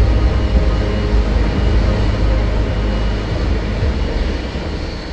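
Boeing 777 jet engines running at taxi power: a steady low rumble with a thin, high, steady whine over it, easing off a little near the end.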